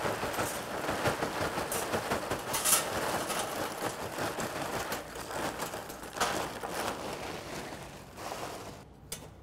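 Large lumps of Kamado Joe Big Block lump charcoal pouring from a bag into a metal charcoal chimney starter, a dense rattling clatter of lumps tumbling and knocking against the metal and each other. The clatter thins out and stops near the end as the chimney fills.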